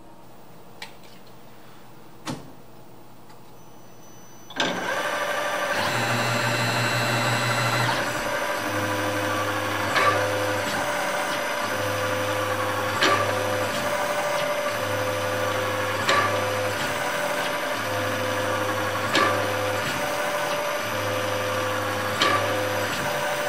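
Quiet for the first four and a half seconds apart from two faint clicks, then a CNC mill with a Procunier auto-reversing tapping head starts abruptly, tapping a row of holes in an aluminium block one after another. It runs in a regular cycle about every three seconds, a low hum that comes and goes as the tap feeds down and the head reverses to back out, with a sharp click at each hole.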